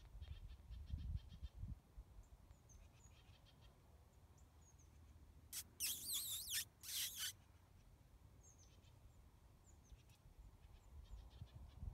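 Two high, wavering cries about six seconds in, the first about a second long and the second shorter, among faint bird chirps.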